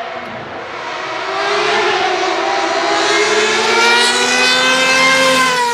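Ferrari 333 SP's 4.0-litre V12 accelerating, its high engine note climbing steadily in pitch and getting louder as the car comes close, then dropping in pitch near the end.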